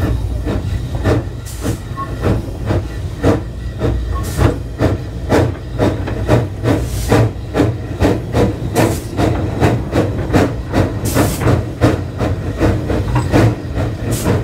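Porter-built narrow-gauge steam switcher locomotive chuffing as it runs, about two even exhaust beats a second over a steady low rumble.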